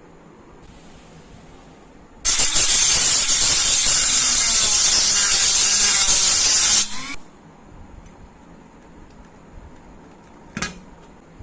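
A loud, steady hiss of a pressurised spray that runs for about four and a half seconds and then cuts off suddenly, followed by a single sharp click near the end.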